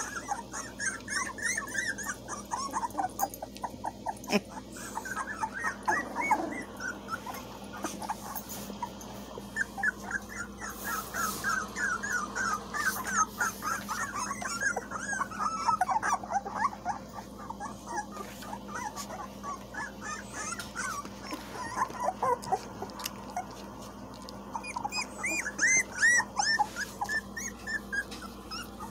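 Young puppies, about three weeks old, whimpering and yipping: many short high-pitched cries that overlap and come in bursts, with short lulls between them.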